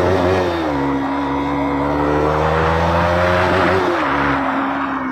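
KTM RC 200's single-cylinder engine running through an aftermarket exhaust on the move, accelerating through the gears. Its pitch drops briefly under a second in, climbs steadily, then falls again at an upshift about four seconds in.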